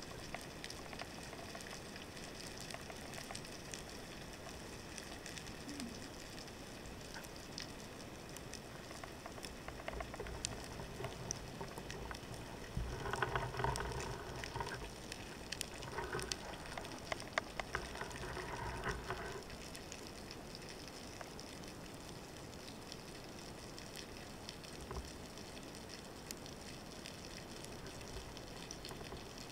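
Underwater ambience heard through a housed camera: a steady fine crackling of many tiny clicks, with three louder, muffled pitched stretches of sound in the middle.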